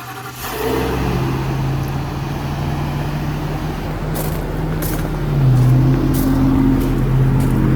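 A 26-foot U-Haul box truck's gasoline engine just started and running, a steady low hum that gets louder about half a second in and changes pitch and grows louder again about five seconds in. A few faint clicks sound over it.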